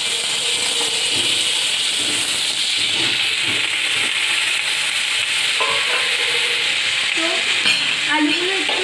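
Cubed potatoes frying in a spoonful of hot oil in a kadai: a steady sizzle as more potato pieces are dropped into the pan.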